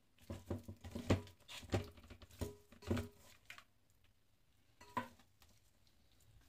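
Raw chicken pieces handled in a stainless steel bowl, knocking and clinking against the metal: a quick run of knocks for about three seconds, then one more knock about five seconds in.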